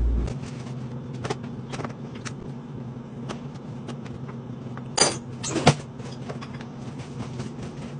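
Small clicks and knocks of dishes and utensils being handled, over a steady low hum. About five seconds in, two louder knocks sound as a lid is put onto a food container, the second knock the loudest.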